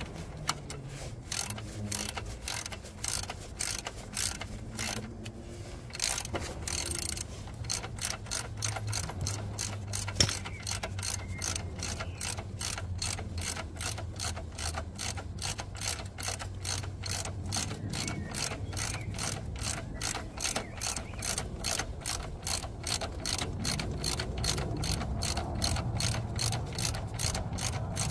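Hand socket ratchet clicking in a steady run of quick strokes, about four clicks a second, as a fastener is turned.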